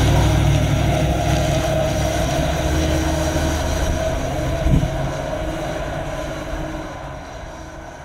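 Ford E-Series van engine running as the van drives away, fading steadily, with a short thump about five seconds in.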